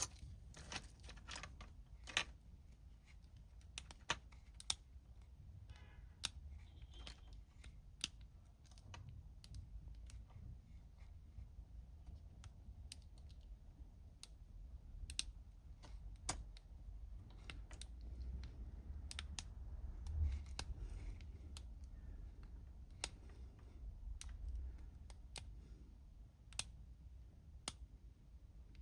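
Faint, irregular metallic clicks of a lock pick and tension wrench working the pin stack of a small Sterling laminated padlock held in the hand, over a low handling rumble.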